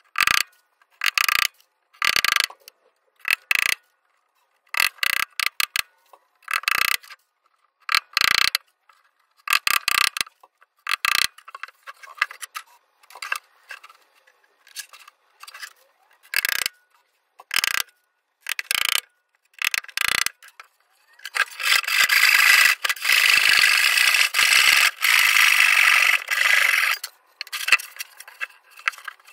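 Thin pine wine-box panels creaking and squeaking in short bursts as they are handled. About 21 seconds in, a steel scraper is drawn steadily across the wood for about five seconds.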